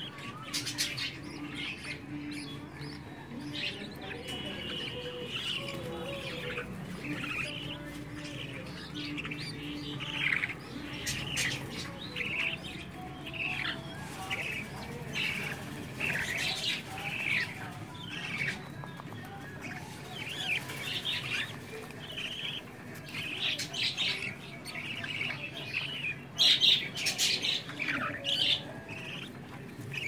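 Budgerigars chirping: a steady stream of short, high chirps, many every second, with louder clusters near the end.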